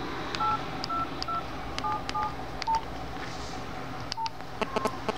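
Keypad tones of a mobile phone as a number is dialed key by key: about seven short two-note beeps, quick in the first few seconds, then sparser, with faint clicks of the buttons. The number is being dialed for a test call with caller ID hidden.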